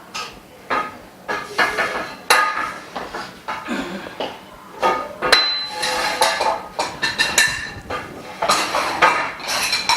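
Frame bars of a dust-free room enclosure knocking and clinking together as they are fitted and tightened with the assembly tool: an irregular run of sharp knocks and rattles, many with a brief metallic ring.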